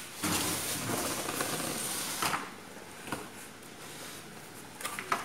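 Packaging being handled: a dense rustle of plastic wrap and cardboard for the first couple of seconds, then quieter, with a few light clicks and knocks.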